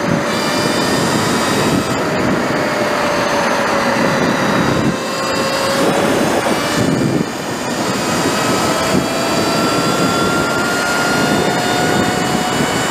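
Sur Ron electric dirt bike's motor whining at speed under a heavy rush of wind on the microphone. The whine sags a little, drops at about seven seconds in, then climbs slowly and steadily as the bike picks up speed again.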